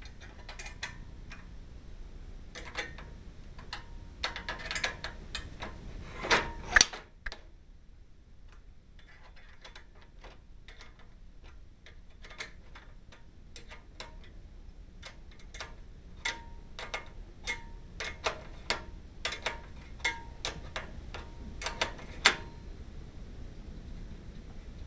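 Metallic clicks and taps of hand tools as the awning support arm's mounting bracket is unbolted, some clicks ringing briefly. There is a louder clatter about six and a half seconds in, and a run of closely spaced clicks in the second half.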